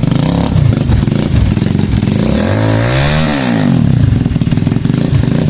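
Motorcycle with a loud aftermarket exhaust running at idle, blipped once about halfway through: the pitch rises and drops back to idle within about a second and a half.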